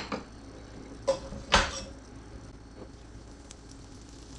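A few knocks of kitchenware, a glass butter dish and a spatula being handled, the loudest about a second and a half in with a short ring. Under them a faint steady hiss of butter and olive oil starting to heat in a frying pan.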